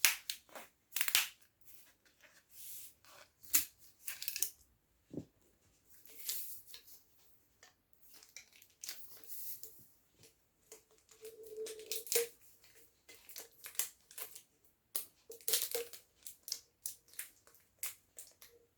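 A 1-litre plastic bottle of Appy Fizz being handled and opened: the plastic crackles and crinkles, with tearing, in short, irregular bursts.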